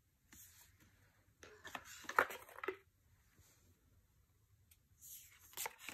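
Tarot cards being handled and flipped: cards sliding and rustling against each other in three short bursts with light clicks, the loudest about two seconds in.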